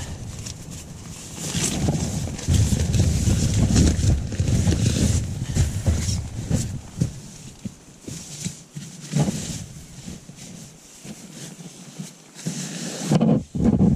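Nylon sleeping pads and tent floor rustling and scuffing as an insulated air pad is spread out and smoothed by hand, in irregular bursts.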